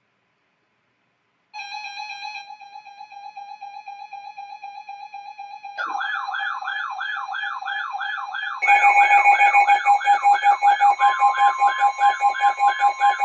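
Weather radio receivers sounding their alarms for a severe thunderstorm warning, one after another. A rapidly pulsing beep starts about a second and a half in, a warbling siren-like alarm joins about six seconds in, a louder pulsing beep joins about eight and a half seconds in, and a steady higher alert tone joins near the end.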